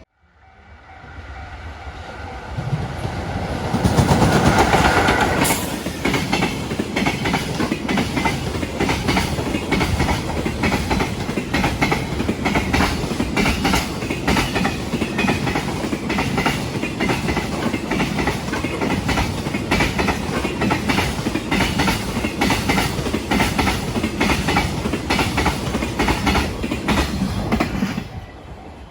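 Freight train passing over a level crossing. It comes in loudest a few seconds in, then a long run of wagon wheels clatters over the rail joints in a steady, rapid clickety-clack, which cuts off suddenly near the end.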